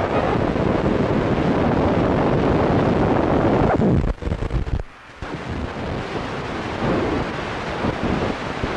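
Loud, rumbling roar that drops out sharply about four seconds in, then carries on a little quieter.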